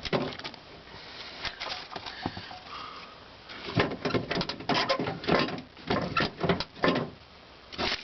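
Irregular clicks, taps and rattles of a car's exterior door-handle assembly being handled as its linkage wire is worked loose, plastic and metal parts knocking together, busiest in the second half.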